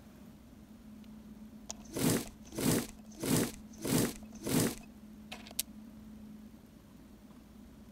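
Miniature potato masher pressing boiled potatoes in a small glass bowl: five squishy, crunching mashing strokes about two-thirds of a second apart. A short click follows as the metal masher is set down on the plastic tray.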